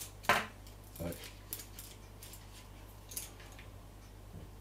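Light clicks and clinks of small objects being handled, the sharpest about a third of a second in, then a few fainter ones.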